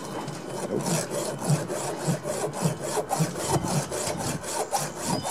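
Round chainsaw file in a file-guide jig rasping back and forth across a saw chain's cutter, sharpening it. Steady rhythmic strokes, about two a second.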